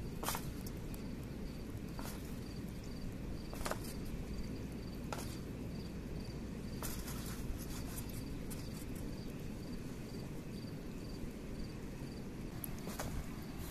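A river running steadily, with an insect chirping in an even pulse about twice a second. A few short crinkles of aluminium foil come as onion slices are set down on it.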